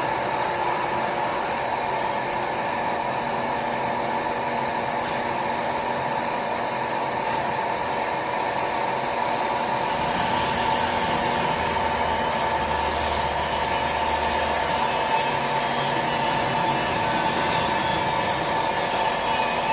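ALTCK36A slant-bed CNC lathe running, its spindle turning a long steel shaft between chuck and tailstock centre: a steady machine whine made of several constant tones. About ten seconds in, a hiss in the upper range rises and carries on, with a low hum for a few seconds after it.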